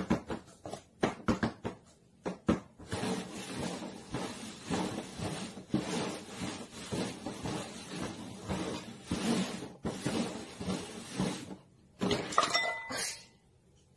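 Paper cups tapped down and slid quickly over a cardboard box as they are shuffled: a run of light knocks, then a long stretch of rapid scraping and tapping. Near the end comes a short clatter with a brief ringing tone as a cup is knocked over.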